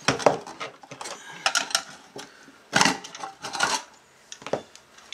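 Irregular metallic clinks and knocks from handling the metal modules and screws of an avionics navigation receiver during disassembly.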